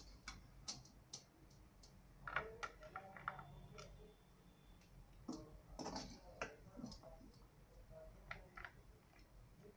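Faint scattered clicks, taps and scrapes of a metal spoon against the pan and plate as fried beef is spooned out onto a plate, a little busier about two and a half seconds in and again around six seconds.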